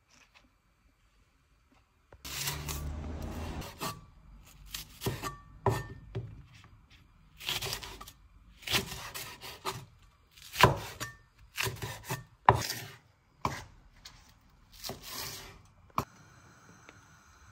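Cleaver chopping spring onions on a wooden cutting board, starting about two seconds in: a long scraping rub, then an irregular run of crunchy cuts and knocks on the board, a few of them sharp and loud. A single sharp click near the end, followed by a faint steady sound.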